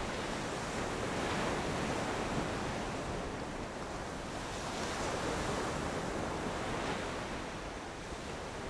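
Sea surf washing in steadily, swelling and easing every few seconds.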